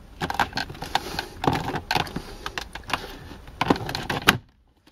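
Irregular plastic clicks and knocks as the instrument cluster of a 1995 Mercedes-Benz W202 C280 is pushed out of its dashboard opening from behind, stopping shortly before the end.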